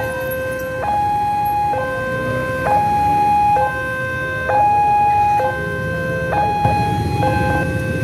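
Railroad level-crossing warning alarm sounding a two-tone electronic signal that switches between a low and a higher tone about once a second, warning of an approaching train. Motorcycle engines run beneath it, louder in the last few seconds.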